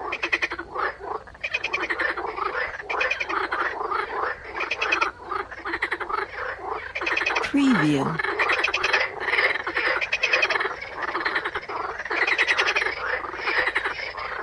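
A chorus of many frogs croaking, their rapid pulsed calls overlapping densely and without a break.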